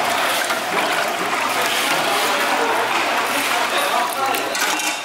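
People's voices talking over a steady background hiss.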